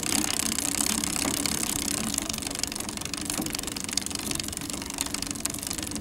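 A 10-speed bicycle pedaled slowly: the chain and drivetrain run steadily with a fast, fine ticking over a low hum.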